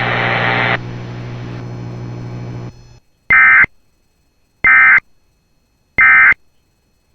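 Emergency Alert System broadcast ending: a steady buzzing hum with hiss drops in level and cuts out, then three short, identical bursts of high-pitched digital data screech, about a second and a half apart. These are the EAS End-of-Message (NNNN) codes that close the alert.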